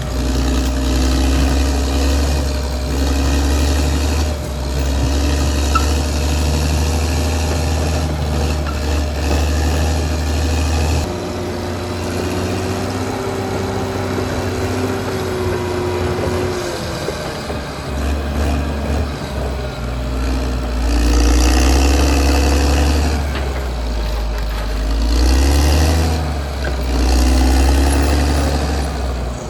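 Caterpillar D6R XL bulldozer's diesel engine running under load. Its pitch rises and falls as the machine works, with several rises in the second half.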